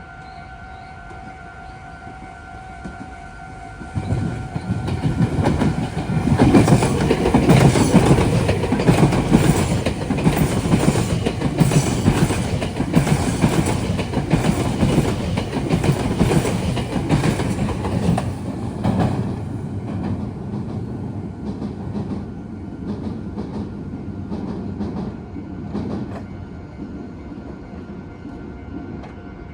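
A Meitetsu electric train passes close by over the junction, wheels clattering over rail joints and turnouts. It grows loud suddenly about four seconds in and stays loud until about nineteen seconds, then fades away with a few last clacks. Under it a level-crossing warning alarm sounds as a steady tone.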